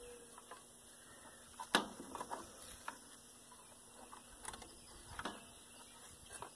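Scattered light clicks and knocks of metal parts being handled as the connections of an electrolysis rust-removal bath are hooked up, with one sharper knock about two seconds in.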